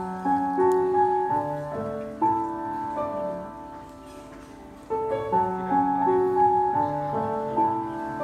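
Grand piano played solo: a melodic phrase of struck notes that dies away about four seconds in, then a similar phrase begins again about five seconds in.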